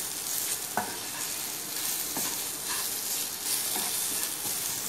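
Onion-tomato masala with chilli powder sizzling in oil in a frying pan, stirred with a spatula that scrapes the pan a few times.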